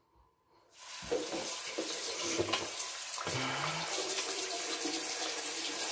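A bathroom tap turned on under a second in, then water running steadily into the sink.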